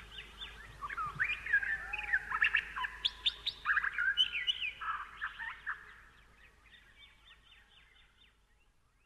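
Several songbirds chirping and twittering, slowed down and reverberant, busiest in the first few seconds and thinning out after about six seconds.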